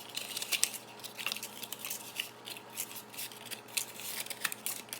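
Paper baking cups being separated and set into a muffin tray: a run of light, irregular crinkles and small taps.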